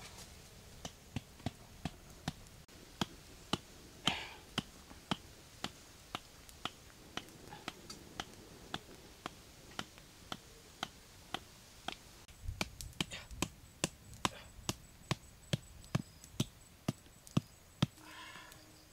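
A steady run of sharp clicks, about two a second, with one louder hit about four seconds in.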